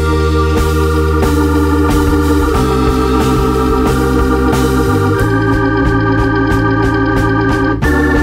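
Background music of held chords over a steady bass, with the chords changing every two to three seconds.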